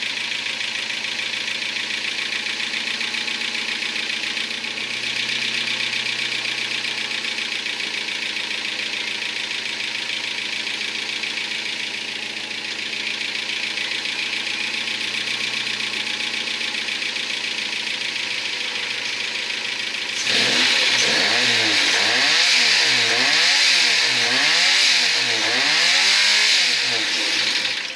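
Renault Clio 1.2 Energy four-cylinder engine, run with no oil and no coolant and already knocking, running steadily. About two-thirds of the way through it gets louder as the throttle is blipped over and over, the revs rising and falling about six times.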